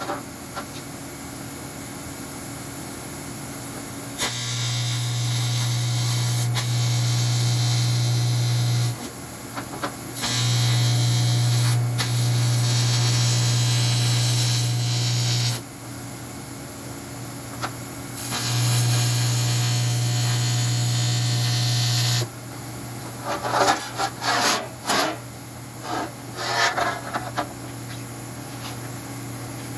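Electric welding arc on aluminum, struck three times for beads of about four to five seconds each: a steady buzz with hiss that starts and stops abruptly. A scatter of short, irregular noises follows near the end.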